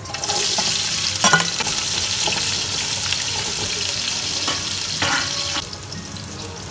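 Sliced onions hitting hot oil with whole spices, sizzling at once and loudly, with a few knocks of a spoon stirring them in the pan. The sizzle drops off near the end.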